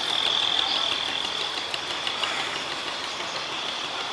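Boat engine running steadily, with a steady high whine over the engine noise.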